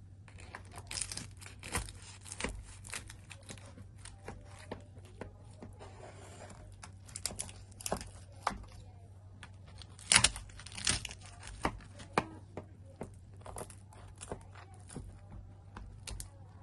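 Irregular crinkling and crackling of something crisp being handled, a burst of sharp clicks at a time with the loudest about ten seconds in, over a steady low hum.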